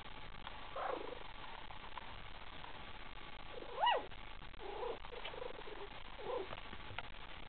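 Young puppies, about four weeks old, squeaking and whimpering: a few short squeaks, and one high squeal that rises and falls about four seconds in, the loudest sound here.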